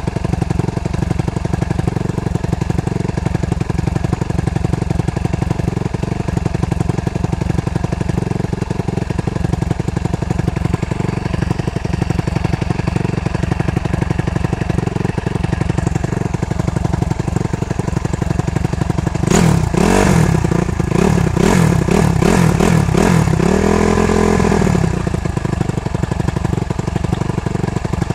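Suzuki RM-Z250 four-stroke single-cylinder motocross engine with a Pro Circuit exhaust idling steadily. About two-thirds of the way through come a string of quick throttle blips, revs rising and falling, ending in a longer held rev before it settles back to idle.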